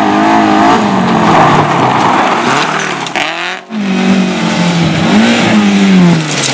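Rally car driven hard: the engine revs rise and fall with gear changes and lifts off the throttle, with a rushing noise of tyres in the first half. The sound breaks off for an instant about halfway through, then the engine picks up again.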